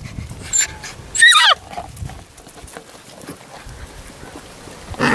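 Labrador Retriever puppies yipping and yelping: a short high yip about half a second in, then a louder yelp that falls in pitch just over a second in, and another yelp starting near the end.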